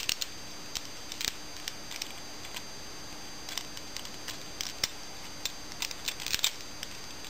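Plastic action figure, a Transformers Universe Hound, being worked by hand: irregular small clicks and snaps of its joints and parts moving, some in quick clusters, over a faint steady hum.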